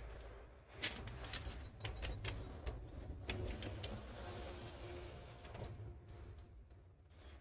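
Metal hand truck rattling and clanking as it is rocked and tipped back under a heavy, wet cedar log. Irregular sharp clicks and knocks start about a second in and die away around six seconds.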